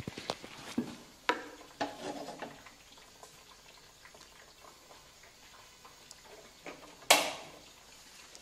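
Handling noise from a clip-on wireless microphone being fastened to a shirt: a run of knocks and rustles in the first couple of seconds, then one loud sharp knock about seven seconds in.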